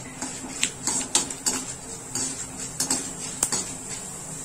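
A perforated metal spatula scrapes and clinks irregularly against an aluminium kadai while stirring chana dal and urad dal frying in hot oil for a tempering, over a light sizzle.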